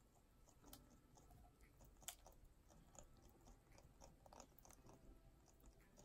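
Faint, irregular small clicks and crunches of amazon parrots chewing treats, over near silence.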